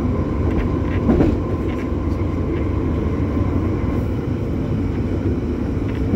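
London Underground Piccadilly line train running between stations, heard from inside the carriage: a steady rumble of wheels on the rails with a thin steady whine over it, and a few faint knocks about a second in.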